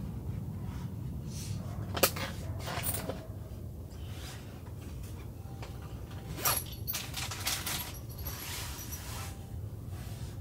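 Bedding and fabric rustling with light knocks as things are handled and arranged on a mattress: a sharp click about two seconds in, then a run of rustles and bumps in the second half, over a steady low rumble.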